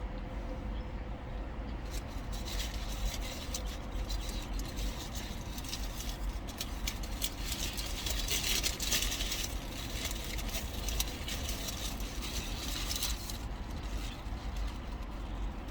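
Crinkling, crackling rustle of wrapping being handled close by, lasting about eleven seconds, over the steady low rumble of a car cabin.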